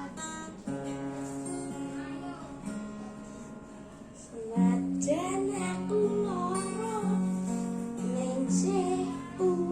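Acoustic guitar strummed and picked, and about halfway through a young voice starts singing a melody over it.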